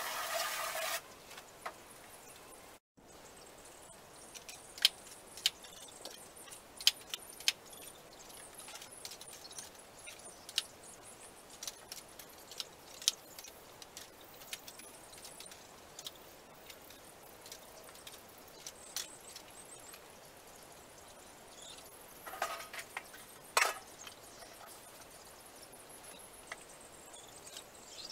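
A steady hiss of water spray stops about a second in. After that, a jaw-style pooper scooper gives scattered sharp plastic clicks and clacks as it opens, closes and scrapes droppings out of the straw and dirt of a chicken run, with a longer, louder scraping clatter late on.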